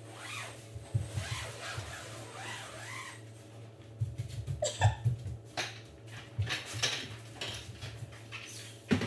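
Handling noises as a pop-up privacy tent is set up: rustling of the tent's nylon fabric and a few knocks and thumps, the loudest about five seconds in, over a low steady hum.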